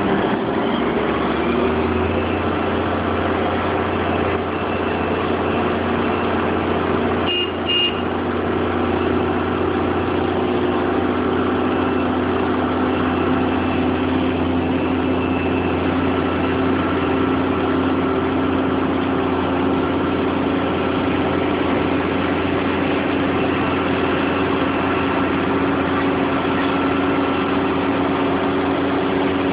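Crane engine running steadily under load while it hoists a rooftop air-conditioning unit on slings. A short double beep sounds about seven seconds in.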